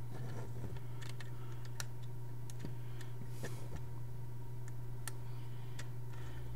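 Scattered faint clicks and taps of plastic Lego bricks as the built model is handled and turned, over a steady low hum.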